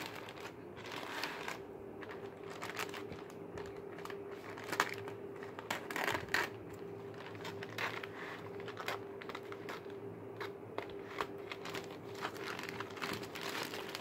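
Plastic courier mailer bag crinkling as it is handled and cut open with scissors, with many small sharp crackles and snips. A faint steady hum runs underneath.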